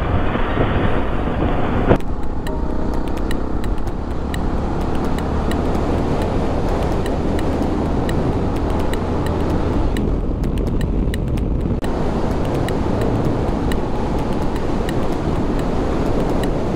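Motorcycle running steadily at road speed, its engine rumble mixed with wind rush on the microphone. The sound changes abruptly about two seconds in, and again for a couple of seconds around ten seconds in, at cuts between clips.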